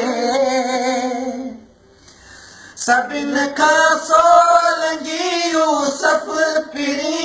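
A man singing a Sindhi song with no instrument heard, breaking off briefly about two seconds in and then singing on.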